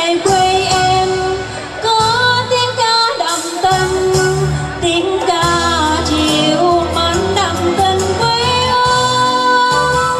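A woman singing a song into a microphone over amplified instrumental accompaniment, with long held and gliding notes.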